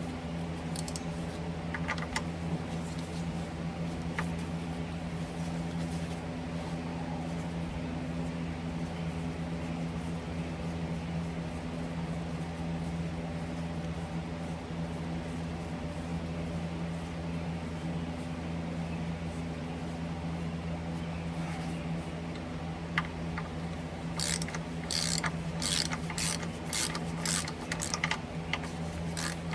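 A steady low hum with a few fixed tones, and near the end a quick run of sharp metallic clicks from a wrench working a PTO stud.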